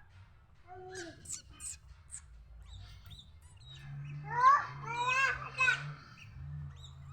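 Sooty-headed bulbul singing: a few short high chirps about a second in, then a run of bubbly, rising whistled notes about four to six seconds in, the loudest part. A faint steady low hum sits beneath the second half.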